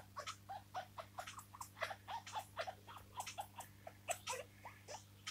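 Young brown-headed parrot making soft, rapid chirping chatter, a run of short quiet notes at about six a second.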